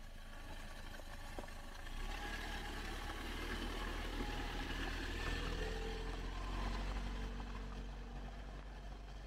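A steady low engine hum that grows louder about two seconds in.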